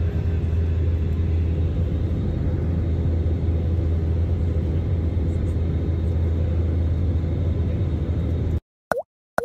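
Steady jet airliner cabin noise in flight: engine and airflow rumble with a strong low hum. It cuts off suddenly near the end and is followed by a brief swish.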